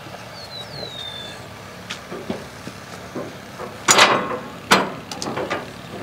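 Sharp knocks and clanks of a log being shoved into place on a portable bandsaw mill's steel bed. Two loud ones come close together about four seconds in, followed by a few lighter knocks.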